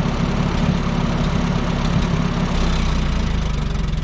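Minneapolis-Moline UB tractor engine idling, its exhaust manifold a replacement taken from a 670. About two and a half seconds in, the engine slows and its separate firing pulses can be heard.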